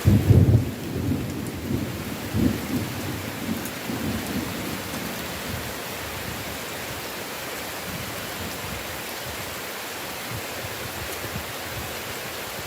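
A thunderclap right at the start, rumbling on in a few rolls and fading over the first five seconds, over steady heavy rain.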